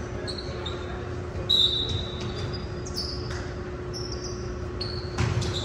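Sneakers squeaking on a hardwood gym floor in short high chirps, with a sharp thump about a second and a half in and another near the end, over a steady low hum.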